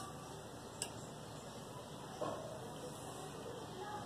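A metal spoon ticks once lightly against a metal cooking pot about a second in, with a soft scrape of cooked rice being moved about two seconds in, over a low steady background hum.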